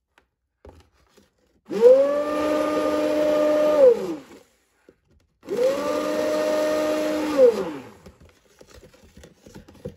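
Handheld immersion blender blending a creamy soap mixture in a bowl, run twice for about two seconds each. Each time the motor's whir rises quickly to a steady pitch, then falls away as it is switched off.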